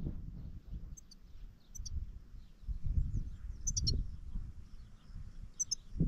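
Small songbird giving short, high chirps in four brief clusters, over a low, uneven rumble of wind on the microphone.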